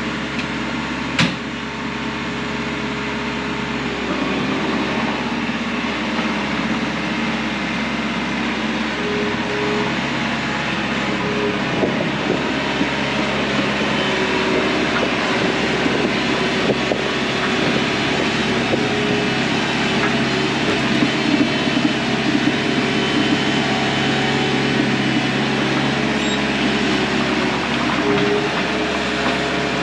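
Bobcat T630 compact track loader's diesel engine running steadily under work, with mechanical clatter from the machine. There is a sharp clank about a second in, and the engine grows a little louder a few seconds in.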